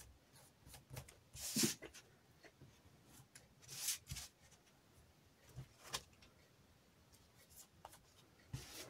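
Paper and card pieces being handled and positioned on a work surface: a few short rustles and light taps and clicks, spread out with quiet between.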